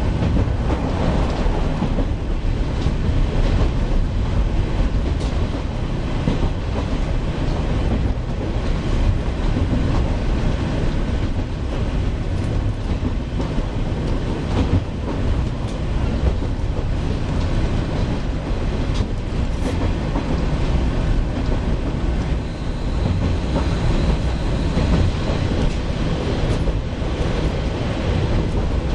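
Onboard running noise of a JR Shikoku KiHa 40 series diesel railcar in motion. A steady rumble is heard, with wheels clicking over the rail joints.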